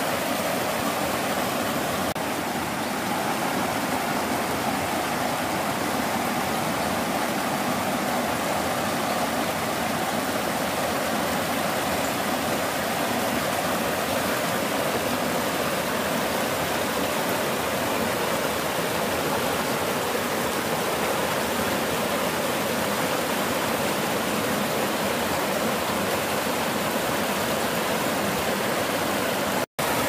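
Steady rushing of a mountain stream, an even unbroken wash of water noise, cutting out for an instant near the end.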